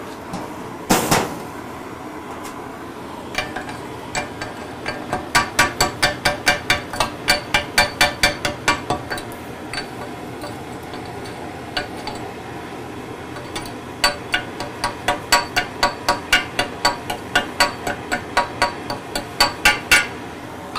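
Quick hammer blows on torch-cut steel, about four a second, in two runs of several seconds with a pause between and one louder knock about a second in, knocking slag off the cut. Under them runs the steady hiss of an oxy-fuel cutting torch.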